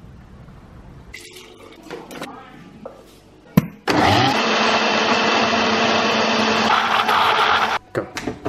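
Countertop blender with a glass jar blending a milk, fruit and oat protein shake: a sharp click, then about four seconds of loud, steady running that cuts off abruptly. A couple of knocks follow as the jar is lifted off the base.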